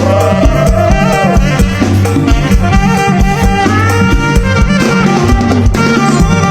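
Mor lam sing band playing an instrumental passage between sung verses: a steady drum-kit beat under a melody line that bends in pitch near the start.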